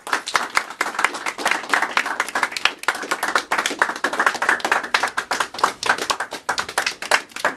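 A small audience applauding, with dense, irregular hand claps from many people, some of them close by. The claps thin out and stop just before the end.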